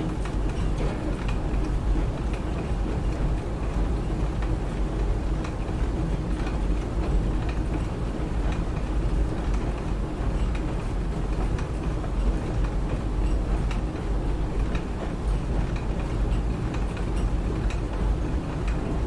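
Factory machinery for grinding and processing rice husk, running steadily: a dense low rumble and hiss with faint scattered clicks.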